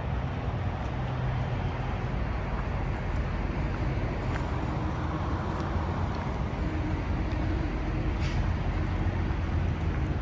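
Semi-truck diesel engine running steadily, a constant low hum under an even wash of noise.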